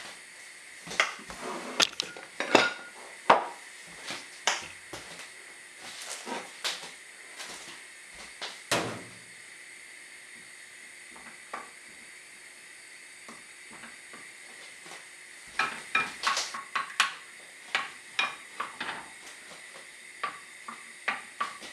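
Wooden spoon knocking and scraping against a metal saucepan while butter is stirred as it melts, over a steady faint hiss. The knocks come scattered at first, ease off for a few seconds in the middle, then come in a quick run near the end.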